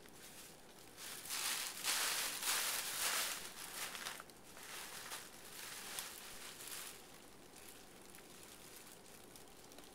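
Thin plastic shopping bags crinkling and rustling as a cat shifts among them, loudest from about one to four seconds in, then fainter in a second stretch before dying away.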